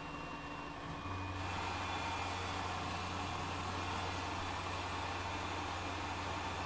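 Tormach RapidTurn CNC lathe turning a cold-rolled steel part with light passes: a steady machine hum and hiss that gets a little louder about a second in.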